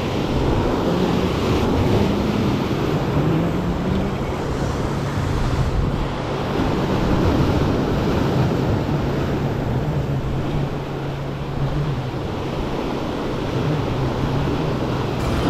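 Ocean surf breaking and washing over the boulders of a rock jetty, a steady rushing wash, with wind buffeting the microphone.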